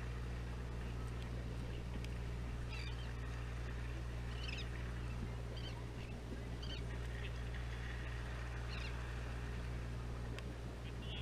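Steady low drone of the fishing boat's engine, with about five short, high cries from seagulls overhead.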